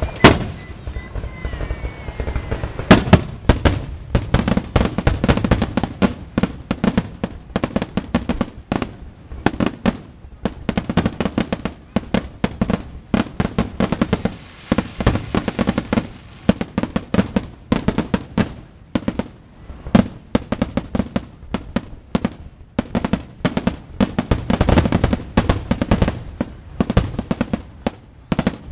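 Aerial fireworks shells bursting in a rapid barrage, several bangs a second overlapping one another. One loud bang comes right at the start, and the near-continuous barrage begins about three seconds in.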